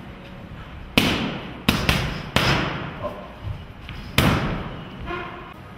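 Boxing punches smacking into focus mitts: five sharp hits, including a quick pair about two seconds in, each followed by a short echo from the gym hall.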